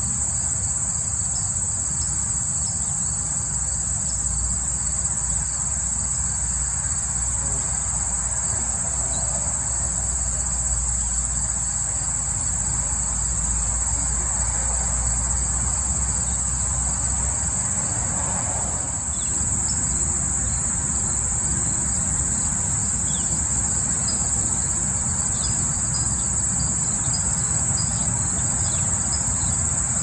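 Chorus of insects trilling steadily and high-pitched, without a break, over a low rumble.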